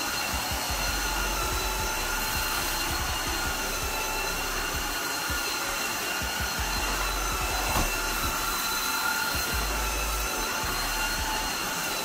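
Tosima H1 cordless wet-dry vacuum mop running steadily as it wet-cleans a tile floor: a constant motor whine with several high steady tones over the hiss of suction. A small knock about eight seconds in.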